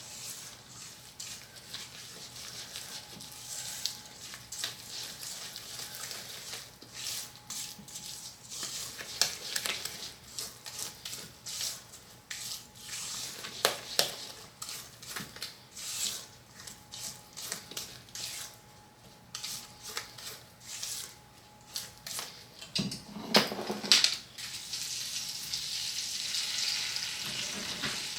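Cornbread batter being stirred in a mixing bowl: irregular clicks and scrapes of a utensil against the bowl, with a louder clatter a little over 20 seconds in.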